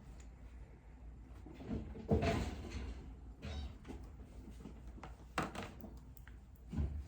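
A few knocks and bumps, like a cupboard or door being moved, with some rustling; the loudest comes about two seconds in and others follow near the middle and end.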